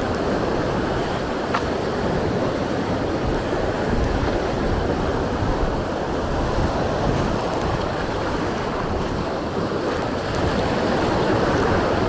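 Sea surf washing onto the beach, with strong wind buffeting the microphone: a steady rushing noise with a heavy low rumble.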